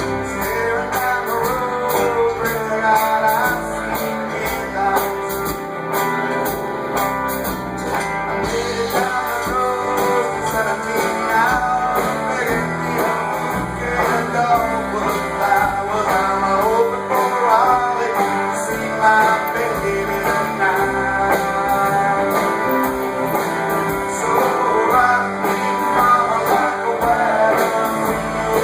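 A live band playing a guitar-led blues-rock song, with singing.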